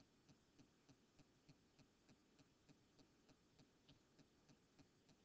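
Near silence: room tone with faint, even ticking about three times a second.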